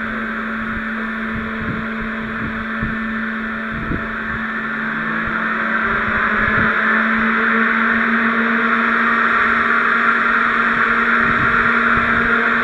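Positive-pressure ventilation fan running, a loud steady rush of air over a constant hum. It cuts in suddenly at the start and grows a little louder toward the end, with a few low thumps underneath.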